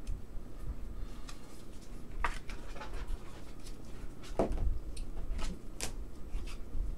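Light clicks and taps of trading cards and a rigid plastic card holder being handled and set down on a table, with a few sharper taps about two, four and a half, and six seconds in.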